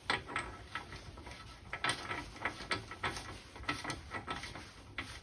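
Hand tools and metal parts being handled: a string of light, irregular metallic clicks and taps.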